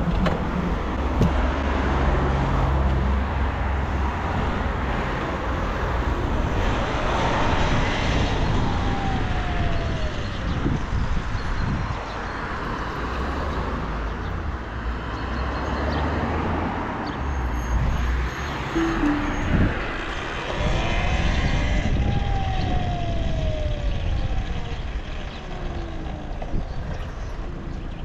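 Riding a Talaria Sting R electric dirt bike: steady wind rush and road noise on the action camera's microphone, with a whine that falls in pitch twice, about eight seconds in and again past twenty seconds.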